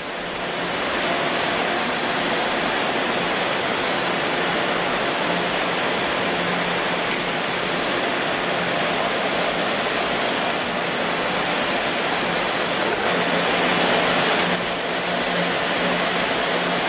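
Steady rushing noise of server-room cooling and rack-server fans, with a low steady hum under it. A few faint ticks come through it in the second half.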